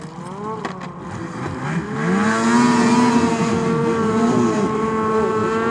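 Snowmobile engine revving up about two seconds in and holding at high revs as the sled powers its way out of the water and slush. It is quieter at first.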